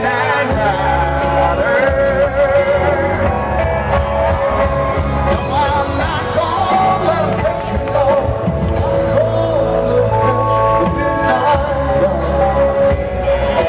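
Live rock band playing loud through a concert PA: a sung vocal with vibrato over electric and acoustic guitars, bass and drums.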